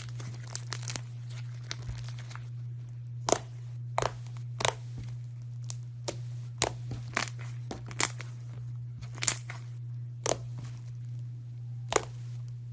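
Crunchy iceberg slime's hardened top layer crackling as it is pressed and broken, in sharp separate crackles roughly one a second, over a steady low hum.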